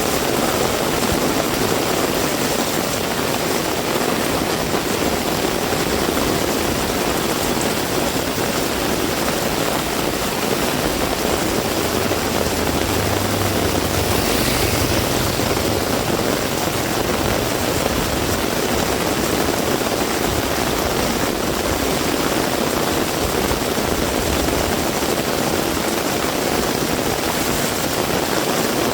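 Heavy rain falling steadily, a dense even hiss. A low rumble swells and fades about halfway through.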